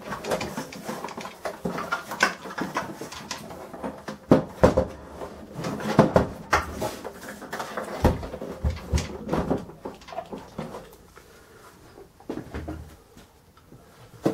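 Sam4S ER-180U cash register's plastic body being handled and turned round on a desk: irregular clicks, knocks and scrapes, the loudest knocks coming around the middle, fewer and softer after about ten seconds.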